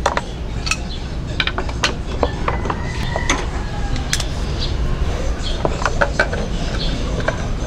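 Irregular small metallic clicks and taps as bolts and plastic parts are handled and refitted by hand on a Honda Click 125i scooter, over a steady low rumble.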